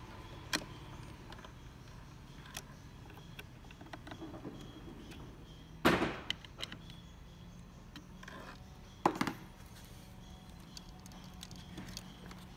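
Faint clicks and ticks of a Phillips screwdriver and metal screws as a replacement printer is screwed into its mount, with two sharp clacks, the loudest sounds, about six and nine seconds in.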